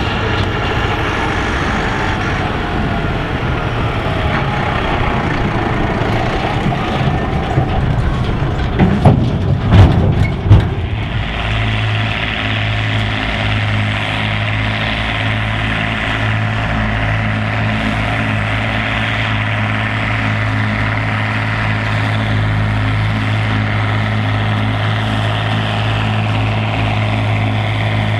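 Tractor towing a silage trailer along a road, its engine note shifting, with a few loud thumps about nine to ten seconds in. Then a Massey Ferguson 6290's six-cylinder engine running hard at steady revs, driving a Pottinger Mex VI trailed forage harvester chopping grass, a steady low hum with a hiss over it.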